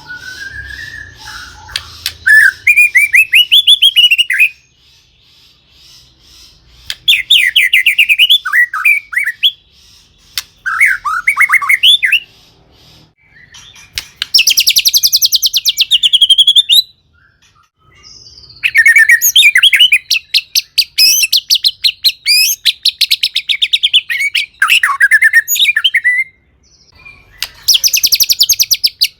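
White-rumped shama (murai batu) singing in bursts of a few seconds with short pauses between them. The phrases mix sliding whistled notes with rapid trills and rattling chatter.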